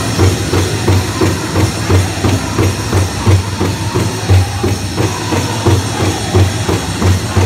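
Powwow drum group playing a grand entry song: the big drum is struck in a steady, even beat, about three strokes a second.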